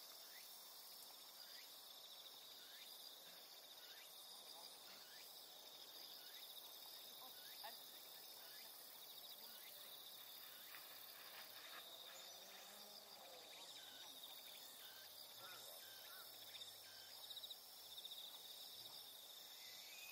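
Faint, steady trilling of insects in the grass, with short falling chirps at intervals over it.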